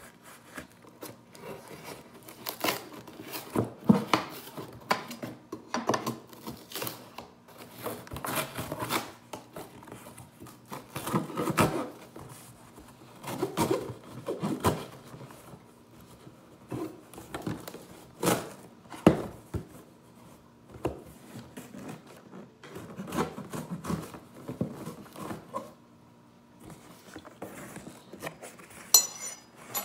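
Cardboard shipping box being opened by hand: packing tape being cut and torn, and the cardboard flaps scraping and rustling, in irregular bursts with sharp clicks.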